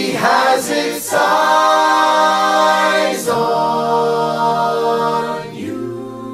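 Recorded music: a choir of voices singing long held chords that change every two seconds or so, easing off a little near the end, as the song closes.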